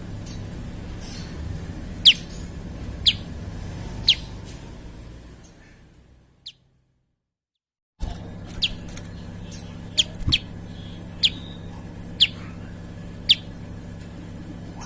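Prinia giving short, sharp, high chirps roughly once a second over a steady low hum. The sound fades out about five seconds in and goes silent for about two seconds, apart from one chirp, then the chirps and hum start again abruptly, as where a looped recording restarts.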